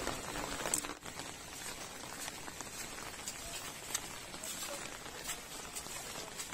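Steady rain pattering, with a few sharper drop-like ticks scattered through it.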